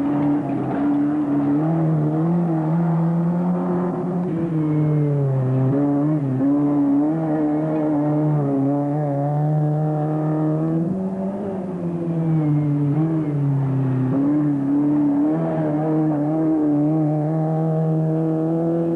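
Off-road race car engine running hard. Its pitch climbs and falls as the driver gets on and off the throttle, dropping back twice before picking up again.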